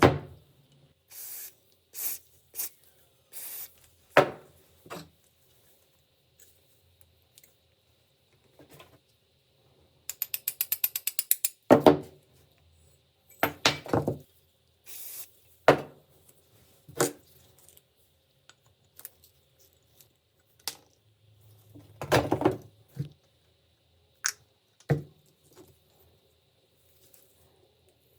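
Scattered clicks and knocks of metal parts and hand tools being handled on a workbench, with a quick ratcheting rattle of about a dozen clicks a second, lasting under two seconds, about ten seconds in.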